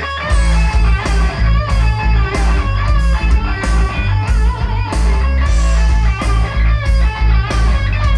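Music played loud through a large PA sound system's speaker cabinets: heavy bass, a steady drum beat and a wavering electric-guitar melody.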